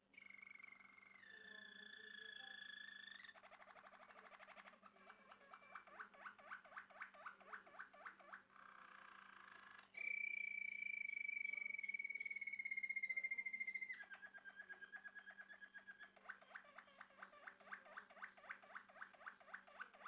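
Male Malinois Waterslager canary singing: long held whistled notes alternate with a fast trill and runs of evenly repeated notes, about two or three a second. The loudest part, about halfway through, is a held whistle lasting some four seconds that slides slightly down in pitch.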